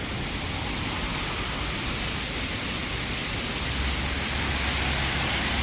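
Hailstorm: a steady roar of hail and rain pounding down, growing slightly louder toward the end. It sounds bad enough to frighten a listener.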